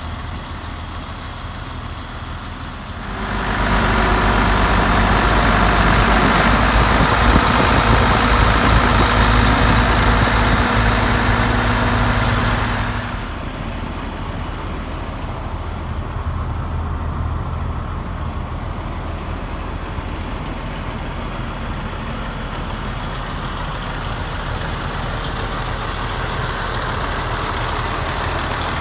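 Diesel engine of a 2001 International 2574 Vac-Con sewer vacuum truck idling steadily. From about three seconds in it grows louder and harsher for about ten seconds, then settles back to a steady idle.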